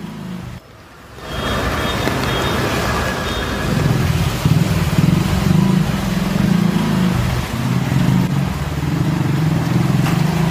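Motorcycle engine running as it rides through a flooded street, with a steady hiss of water being churned up. The engine note comes in strongly about four seconds in.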